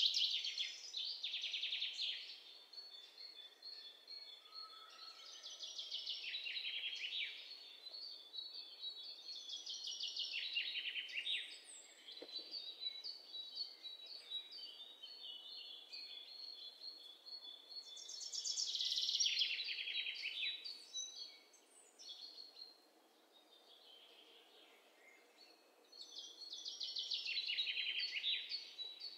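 Birdsong: several bursts of rapid high trills and chirps every few seconds, with thin high whistles between them.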